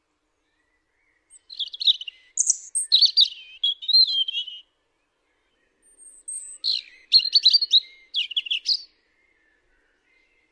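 A songbird singing two phrases of high, quickly changing notes and rapid trills, each about three seconds long, with a pause of about a second between them.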